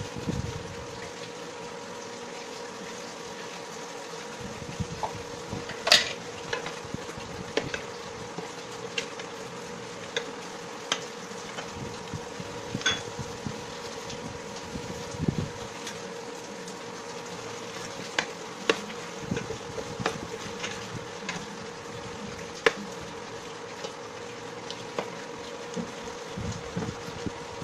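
A wooden spoon stirring chicken feet in a stainless steel pan, with scattered knocks and clicks of the spoon against the pan, the sharpest about six seconds in and again near the end. Under it runs a steady buzzing hum from the electric cooktop.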